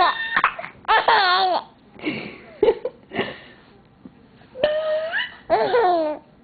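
Baby laughing in about five high-pitched bursts with short pauses between them.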